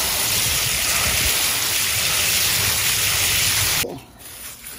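Steady spray of water from a watering can's rose splashing onto freshly dug carrots in a plastic tray, rinsing off the soil. It cuts off abruptly near the end.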